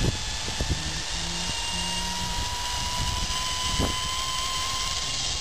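Zip line trolley's pulleys running along the steel cable: a steady whine that slowly rises in pitch, over a strong rush of wind noise, with a few light knocks in the first second.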